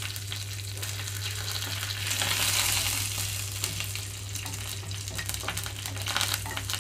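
Mustard seeds, cumin and fresh curry leaves sizzling in hot oil in a nonstick frying pan, the tempering for a South Indian stir-fry. The sizzle swells about two seconds in, and a wooden spatula stirs the pan in the second half. Small clicks run throughout, over a steady low hum.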